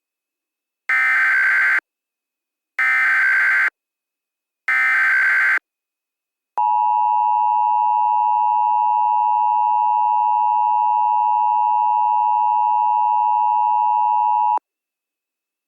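Emergency Alert System tones. First come three short, shrill bursts of digital header data about a second apart. Then the two-tone EAS attention signal holds steady for about eight seconds and cuts off abruptly.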